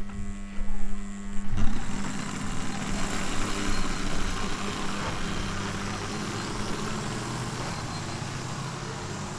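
OO gauge model diesel locomotives running along track: the steady whirr of their small electric motors and the rumble of wheels on rail over a low hum. About a second and a half in the sound widens into a fuller rushing whirr as the locomotives pass close by.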